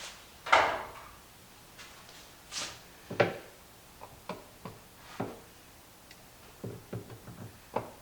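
Irregular knocks and clicks of hand tools and plastic parts being handled while working on a compost tumbler's riveted lid ring. The loudest knock comes about half a second in, and a quick run of smaller clicks comes near the end.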